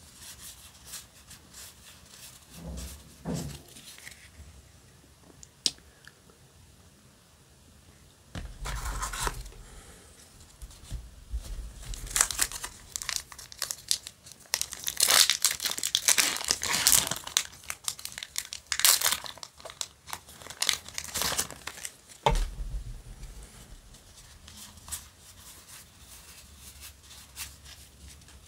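Foil Yu-Gi-Oh! booster pack being crinkled and torn open: dense crackling rustles that run for about fourteen seconds through the middle. Before and after, quieter clicks and rustles of trading cards being handled.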